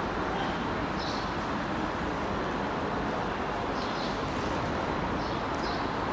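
Steady rushing background noise of city traffic and rail at a busy station, with a few faint, short high squeaks.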